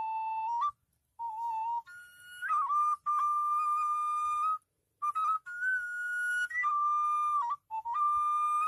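Background music: a solo flute melody of long held notes that step between pitches, with short silent breaks between phrases.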